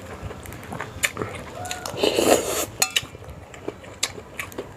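Eating utensils clinking and tapping against a bowl in a few sharp clicks, with a brief louder noisy sound about two seconds in.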